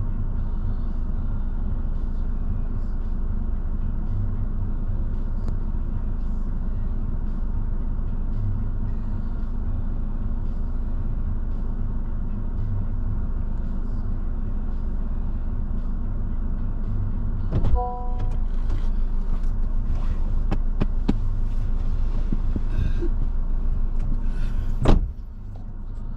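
Steady low engine and road rumble of a car being driven, heard from inside the cabin. About 18 s in there is a short beep with a click, then scattered light clicks, and a sharp knock near the end after which the rumble drops away.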